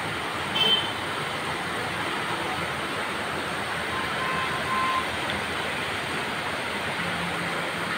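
Steady rain falling, a continuous even hiss. A short high chirp sounds under a second in, and a faint steady tone is heard between about four and five seconds in.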